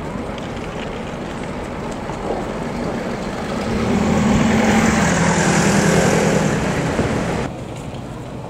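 City street traffic noise, with a heavy vehicle's engine swelling louder as it passes about three and a half seconds in, then stopping abruptly near the end.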